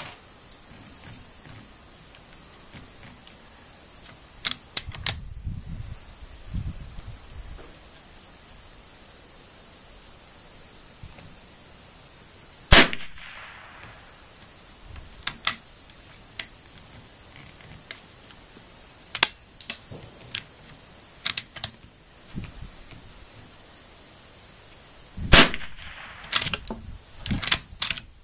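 Two sharp .22 rimfire shots from a Winchester 94/22 lever-action rifle, about 13 s apart, with metallic clicks and clacks of the lever and bolt being worked between them. A steady high chirring of insects runs underneath.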